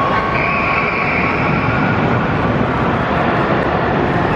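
Roller coaster train running along its steel track: a steady rumble of wheels with a held high whine over it.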